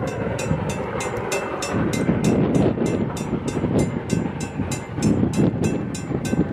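Train running, with a low rumble under a rapid, even high clicking at about four clicks a second.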